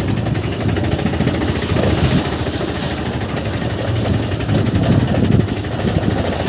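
Motorcycle engine running at low speed, a steady, choppy low-pitched sound, while riding over a rough, muddy, potholed road.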